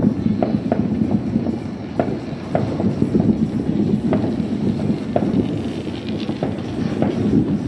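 Fireworks going off: about ten sharp bangs and crackles at irregular intervals over a steady low rumble.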